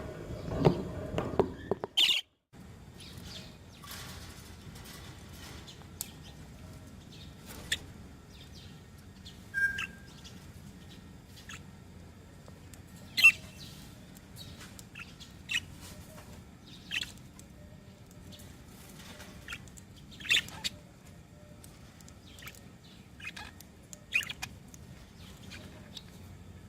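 Budgerigars chirping: short, scattered chirps every second or two over a faint steady background.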